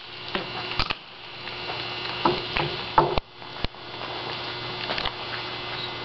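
Steady room noise with a faint electrical hum, broken by a handful of sharp, irregular knocks and taps.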